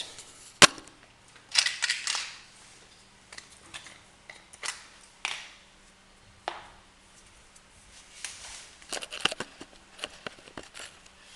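Handling noises while a PVC balcony door's hinge pin is greased with solidol: a sharp click about half a second in, then scattered short scrapes, taps and clicks.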